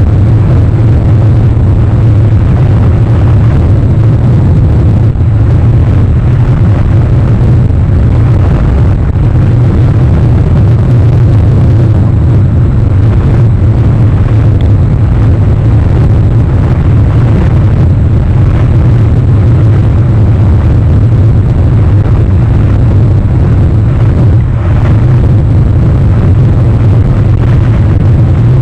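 Loud, steady low rumble with a hiss above it and no distinct events.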